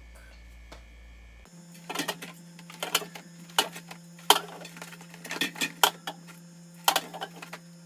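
Aluminium soda cans being set one after another into a mini fridge, clacking and clinking against each other and the shelf. It is an irregular run of sharp knocks, roughly one or two a second, that starts about a second and a half in.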